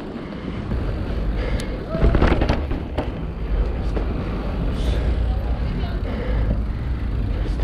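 Bicycle ride heard from a handlebar camera: a steady low rumble of wind and tyre noise, with a cluster of sharp knocks and rattles about two to three seconds in.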